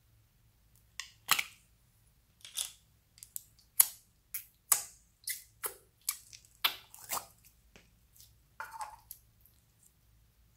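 Clear purple slime being pressed and worked out of its thin plastic tub: an irregular run of about a dozen short crackles, clicks and squelches from the flexing plastic and the slime, starting about a second in and ending shortly before the close.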